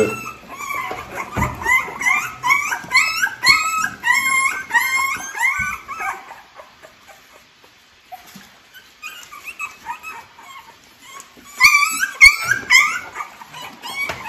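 Three-week-old American Bully puppies crying in a rapid string of short, high-pitched squeaky calls. The calls run for about six seconds, die down, then pick up again for a second or two near the end.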